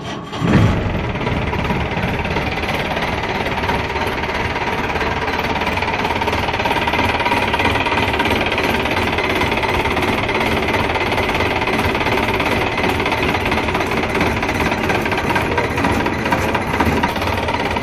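1999 Mahindra Commander jeep's DI diesel engine cranking on the starter, catching within about half a second, then idling steadily.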